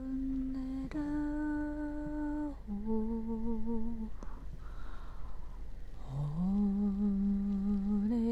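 A single voice humming wordless 'light language' toning in long held notes. Three notes come one after another, each held one to two seconds, the third wavering in pitch. After a pause for breath of about two seconds, a last note slides up into pitch and is held steady.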